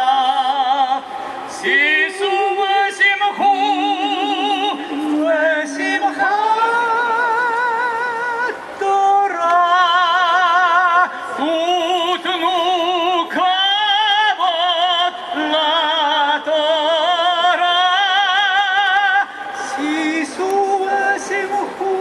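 Men and women singing a lively Hebrew song together, holding wavering notes with strong vibrato as the melody steps up and down.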